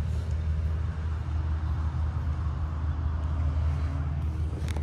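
A steady low engine rumble, with a brief click near the end.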